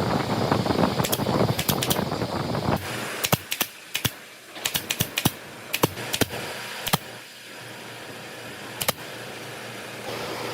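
About three seconds of rough scraping on wood, then about a dozen sharp, irregular taps and clicks of hand-tool work on wood.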